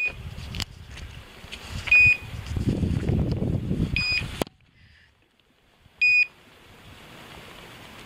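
Hunting dog's beeper collar in point mode: a short, high beep about every two seconds, signalling that the English setter is holding a point. Rustling steps through grass and brush during the first half.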